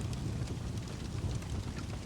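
Wood fire crackling in a fireplace: a steady low rumble with scattered small pops and snaps.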